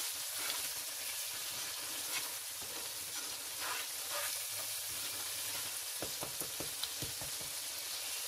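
Onion-tomato masala sizzling in a pot as it is fried down with a little added water, stirred with a wooden spoon. Near the end the spoon knocks and scrapes against the pot several times.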